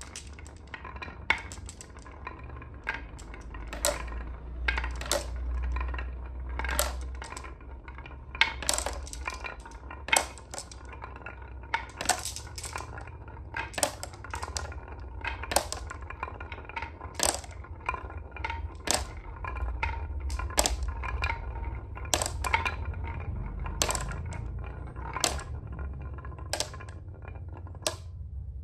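Glass marbles rolling down a carved wooden wavy track with a low rumble, each one clinking sharply as it drops into a plastic toy dump truck's bed among other marbles, about one every second or two.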